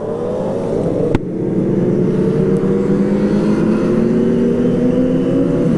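Kawasaki ZX-25R's 250 cc inline-four engine pulling away at low speed, its note rising slowly and steadily. There is one sharp click about a second in.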